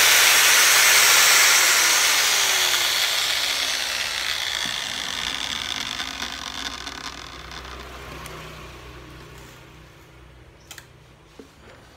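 Hitachi 100-volt, 670-watt angle grinder running free at full speed, then winding down after being switched off about a second and a half in, its whine fading away over the next eight seconds or so. A couple of light clicks near the end.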